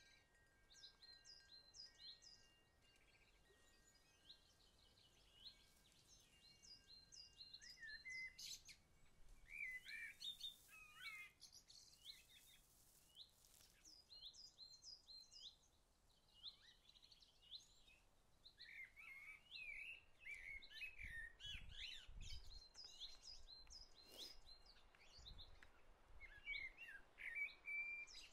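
Faint outdoor birdsong: several small birds chirping and twittering in short phrases, with brief gaps between bouts.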